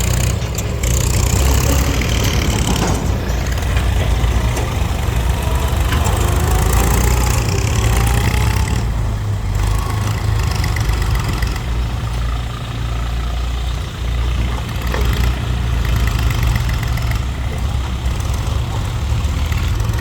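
Heavy diesel engine of a tractor or backhoe running steadily, with a faint rising tone a few seconds in.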